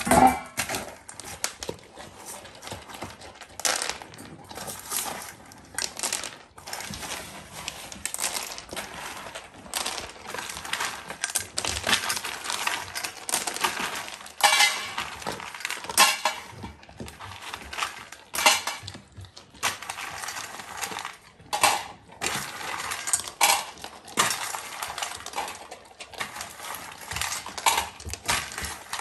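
Dry dog kibble rattling and clinking against stainless steel dog bowls in many irregular small clicks, with an Alaskan malamute eating the kibble from the bowl and off a wooden floor.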